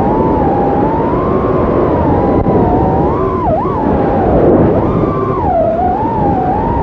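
Brushless motors of a micro FPV quadcopter (T-Motor F1507) whining, their pitch wavering up and down with throttle and dipping sharply then recovering a couple of times midway, over a rush of air.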